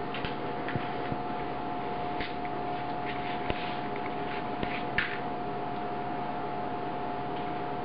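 Scattered soft taps and paper rustles from handling and gluing small paper cutouts onto a board, the sharpest tap about five seconds in, over a steady background hum.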